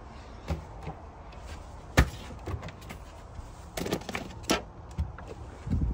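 Cabinet mini-fridge door clicking open, then plastic food containers with snap-on lids knocking and clattering as they are handled and pulled out, several short knocks in all.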